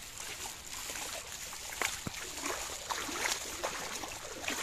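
Water splashing and trickling in many small, irregular splashes.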